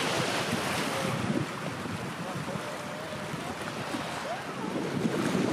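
Steady rushing of wind buffeting the microphone over the wash of waves, easing a little mid-way and growing louder near the end.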